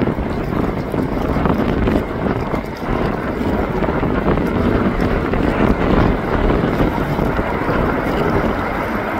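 Strong wind buffeting the microphone, with the rumble of jet aircraft engines beneath it as an Airbus A380 taxis.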